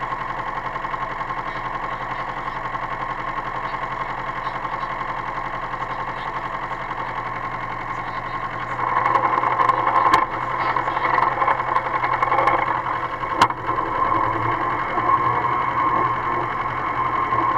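Engine of a Lister rail truck running steadily with a rapid beat. It gets louder and rougher about nine seconds in as the loco pulls away along the track, with a couple of sharp clanks.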